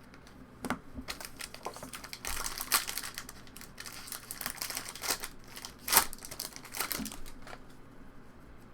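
Crinkling and rustling of trading-card pack wrappers and cards being handled, with irregular clicks and a sharper click about six seconds in.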